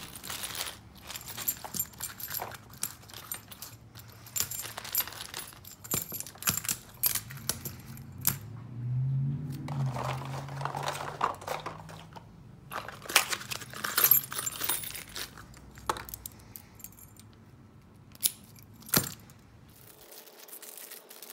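Brass lock cylinders and keys clinking and jangling as they are handled and sorted by hand, in irregular sharp clicks, with plastic bags crinkling now and then.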